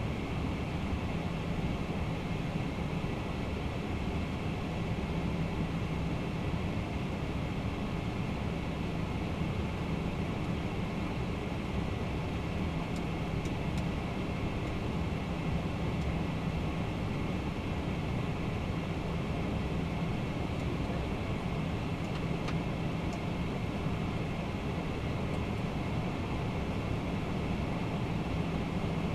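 Steady flight-deck noise of a Boeing 767-300ER in flight: a constant rush of airflow and engine hum with a faint steady tone, and a few faint clicks about halfway through.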